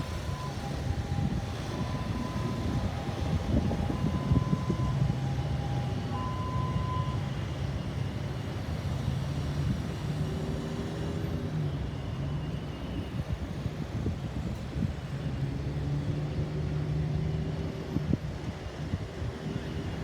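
An emergency vehicle's two-tone hi-lo siren, alternating between a higher and a lower pitch, fading out after about seven seconds over the steady rumble of road traffic and vehicle engines.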